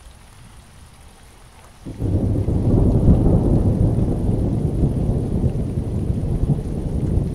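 Rain falling, joined about two seconds in by a sudden, loud, deep roll of thunder that goes on rumbling for the rest of the time.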